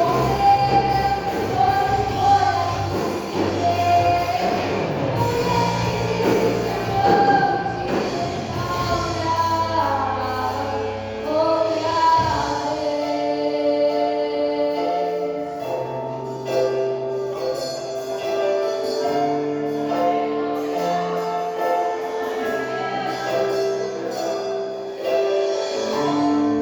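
Live gospel band playing a hymn with singing. About halfway through, the drums and low bass drop away, leaving long held chords and notes.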